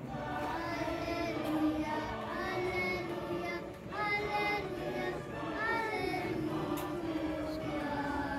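A children's choir singing.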